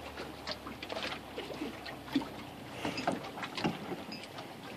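Lake water lapping against a small aluminum boat's hull, with irregular light knocks and splashes several times a second as the boat rocks.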